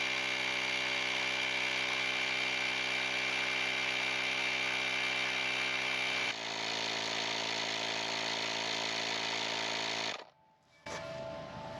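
A small portable electric tire-inflator air compressor running steadily with a buzzing motor-and-piston sound as it pumps up a motorcycle tire toward 40 psi. Its tone shifts slightly about six seconds in, and it stops abruptly near the end.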